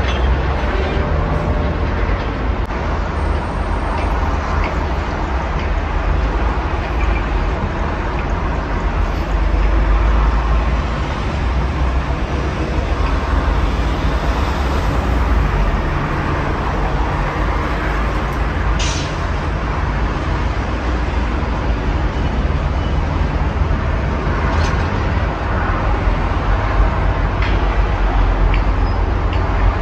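Steady road traffic on a multi-lane highway: a continuous rumble of cars, vans, trucks and buses passing, with a short hiss about two-thirds of the way through.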